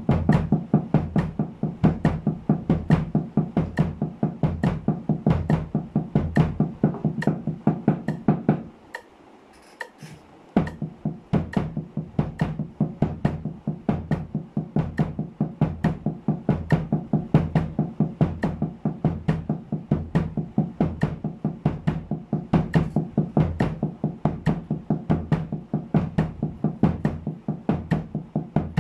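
Snare drum, draped with a cloth, played with wooden sticks in steady sixteenth-note double strokes at 70 bpm, with a kick drum on the last two sixteenths of each beat. The playing stops for about two seconds around nine seconds in, then resumes.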